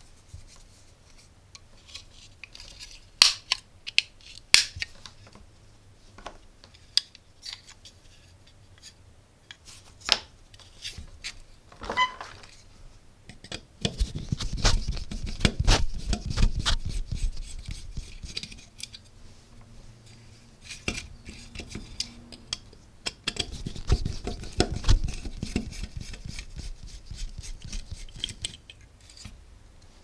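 Hands taking apart a plastic USB wall socket: sharp clicks and snaps as the plastic faceplate is pried off, then a screwdriver grinding and clicking as it turns out small screws from the metal mounting frame, in two stretches of a few seconds each.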